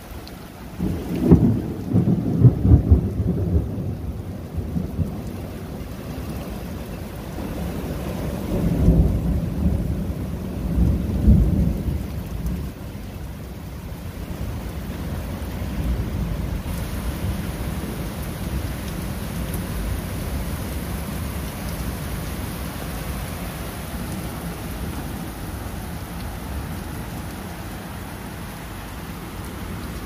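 Thunder rumbling twice, starting about a second in and again around eight seconds in, over steady rain falling on standing water. After the second rumble only the steady patter of the rain is left.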